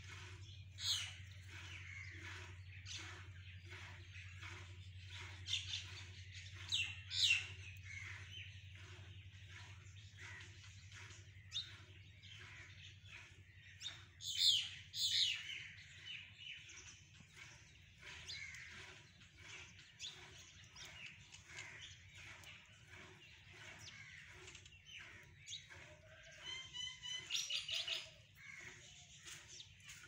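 A flock of mynas chirping and calling as they feed. Among steady chatter come a few loud, sharp calls, and a quick run of notes near the end.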